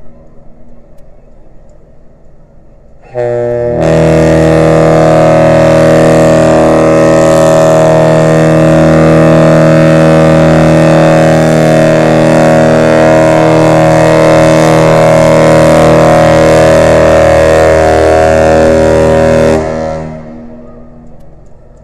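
The James R. Barker's ship's horn, deep like a baritone, sounding one long steady blast of about sixteen seconds as part of its master salute. It starts about three seconds in and fades out near the end.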